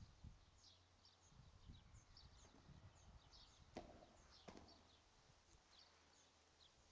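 Faint, quick high chirps of small birds repeat throughout. A sharp knock of a padel racket striking the ball comes about four seconds in, followed by a second, softer knock about half a second later.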